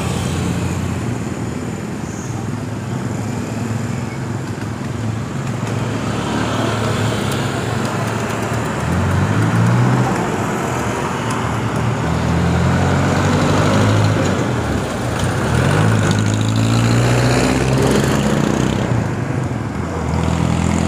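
Wind rushing over the microphone of a handlebar-mounted phone while riding on a road, with a motor engine running underneath that rises and falls in pitch through the middle.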